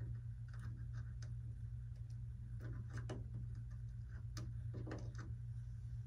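A hobby knife cutting and scraping iron-on covering film away from a strut-mount hole on a model aircraft wing: scattered small clicks and ticks, about seven in six seconds, over a steady low hum.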